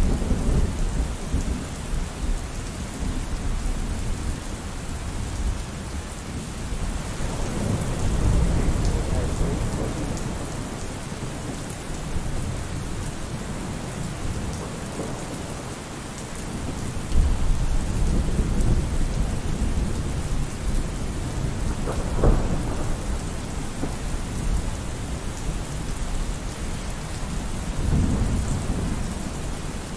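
Steady rain with low rolls of thunder swelling up at intervals, and one short sharp crack about two-thirds of the way through.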